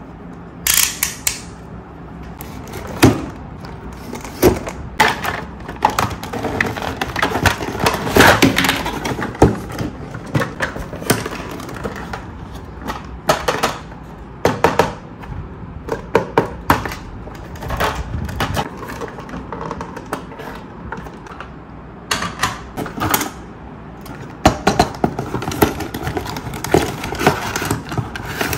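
Hard plastic toy pieces being handled: irregular clicks, taps and clatter.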